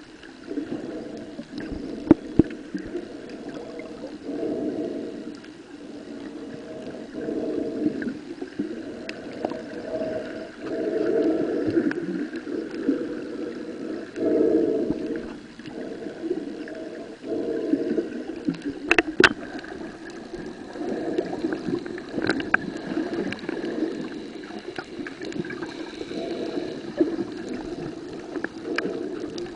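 Muffled water noise heard through an underwater camera held below the surface, swelling and fading every second or two, with a few sharp clicks or knocks, the clearest about nineteen seconds in.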